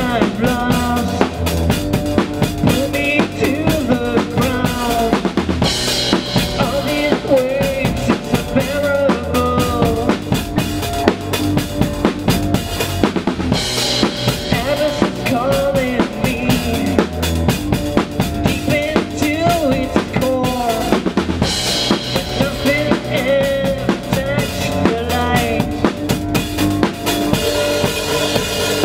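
Drum kit played fast in post-black-metal style, blast beats with dense kick and snare hits, with a crash cymbal about every eight seconds. The band's recorded song, with its sustained melodic lines, plays along.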